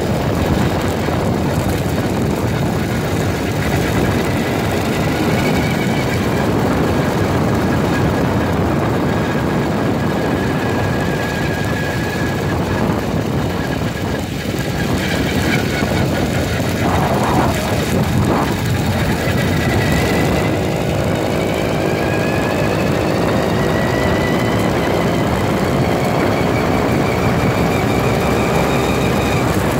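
An 80cc Bullet Train bicycle engine drives a Schwinn Stingray under way, heavily covered by wind and road noise on the handlebar-mounted phone. Its whine climbs in pitch over the last third as the bike speeds up.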